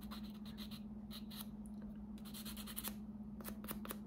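A nail file rasped quickly back and forth over a fingernail to file off leftover nail glue. The strokes come in short fast runs with brief pauses between them.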